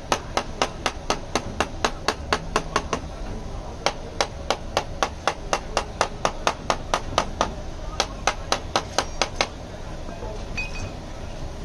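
A thin steel tool tapping quickly along the metal header edge of a car radiator's tank, about five sharp metallic taps a second. The taps pause briefly twice and stop near the end.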